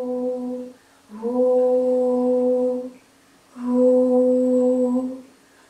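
A woman humming long, steady notes at one pitch, three of them with short pauses between, as echolocation calls that the VR simulation turns into a picture of the space around her.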